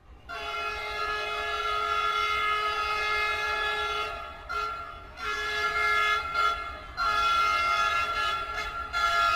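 A train horn sounding in long, held blasts with a few short breaks between them.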